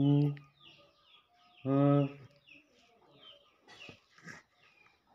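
Birds chirping repeatedly with short, high, falling notes, broken twice by a short, loud, low-pitched call, once at the start and again about two seconds in.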